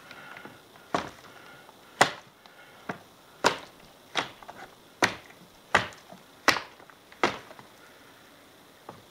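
Cold Steel Hide Out double-edged dagger stabbing again and again into a water-filled 2-liter plastic bottle: about nine sharp hits, a little under a second apart. The plastic at the bottle's base is really tough.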